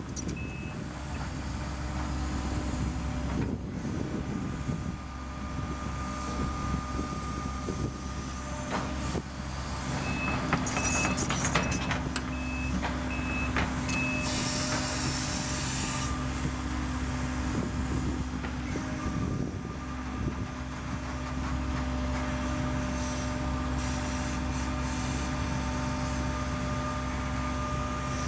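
Case CX130D long-reach excavator's diesel engine running steadily under hydraulic load, a little louder about ten seconds in. Its warning beeper sounds a run of short high beeps at the start and another run of about six beeps around ten seconds in as the machine moves. A brief hiss follows about halfway through.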